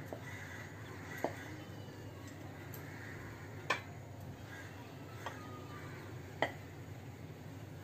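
Spatula knocking against a kadhai while the thick cooked besan-and-coriander mixture is scraped out onto a plate: four sharp knocks a second or two apart over a low steady hum.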